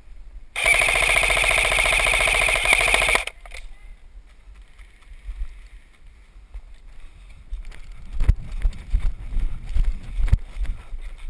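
Airsoft electric rifle firing one long full-auto burst of about two and a half seconds, a fast even rattle, starting just under a second in. A few dull thumps follow near the end.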